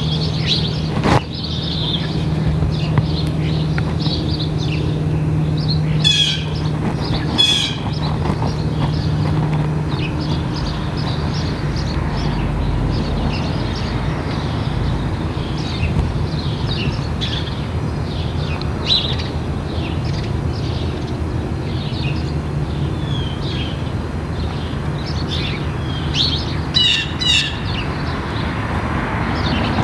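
Distant four-bladed Cirrus SR22T single-engine propeller plane droning overhead, a steady low hum that fades after about ten seconds. Small birds chirp repeatedly over it, and there is one sharp knock about a second in.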